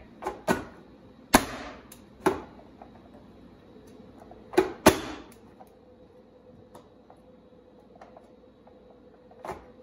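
Sharp plastic clacks and knocks from a Progressive onion chopper-dicer as onion pieces are set on its blade grid and the hinged lid and container are handled. There are several clacks in the first five seconds, the loudest about a second in, then only faint ticks.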